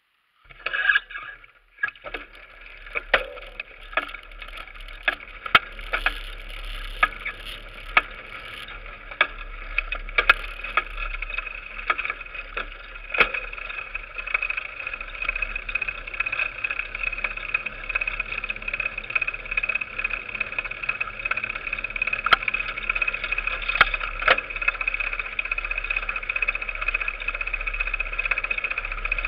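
Mountain bike rolling over a rough forest track and gravel road, heard through a handlebar-mounted camera: a steady whirring rush from the tyres and drivetrain, with frequent sharp clicks and knocks as the bike jolts over bumps. It starts about half a second in.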